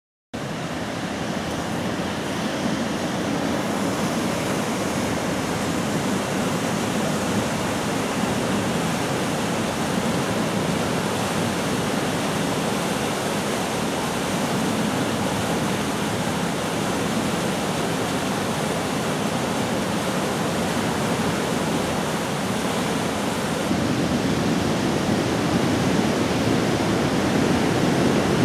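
Stream water rushing through a deep, narrow rock gorge: a steady, even rush of white water, getting a little louder near the end.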